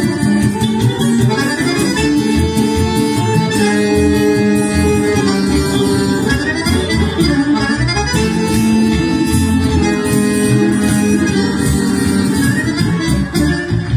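Live band music: an electric bass guitar and a guitar play the rhythm accompaniment, under sustained held chords and melody lines.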